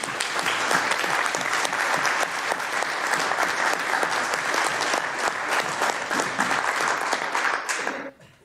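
Applause: many people clapping steadily together at the close of a speech, dying away near the end.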